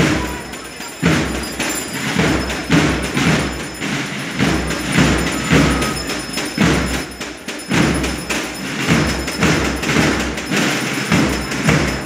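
Dull thumps repeating irregularly, about once or twice a second.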